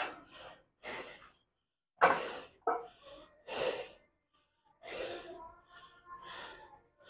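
A man breathing hard after a set taken to failure: a run of heavy breaths and sighs, about one a second, the sharpest about two seconds in.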